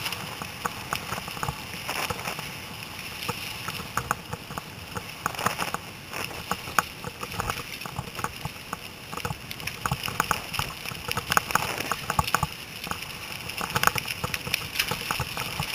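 Mountain bike rattling over a rough dirt trail: many irregular clattering knocks over a steady hiss.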